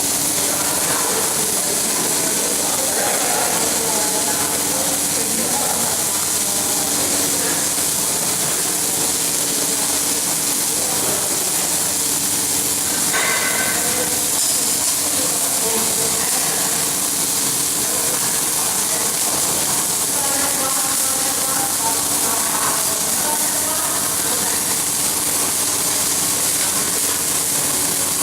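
Welding arc hissing steadily through a long continuous weld run, with a faint steady hum underneath.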